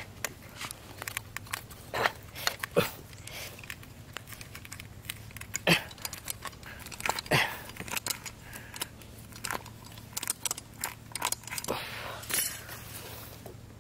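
Scissors snipping and clicking, with crunches and rustles from hands working at a tyre: a string of irregular sharp clicks, loudest a few seconds in.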